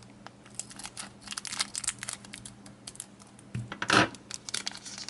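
Foil wrapper of a Pokémon booster pack crinkling and crackling as it is cut open, with a louder crackle about four seconds in.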